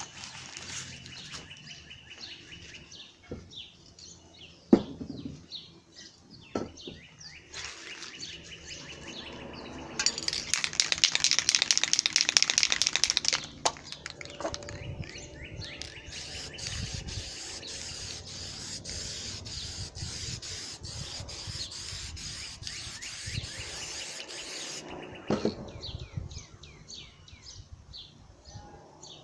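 Small birds chirping throughout, with a sharp knock about five seconds in. Near the middle an aerosol spray paint can hisses loudly for about three and a half seconds, followed by a fainter crackly hiss for about ten seconds.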